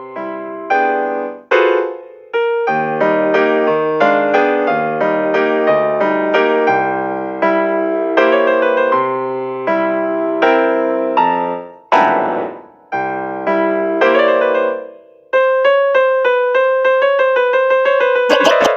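Piano playing a run of chords, ending in fast repeated chords over the last few seconds.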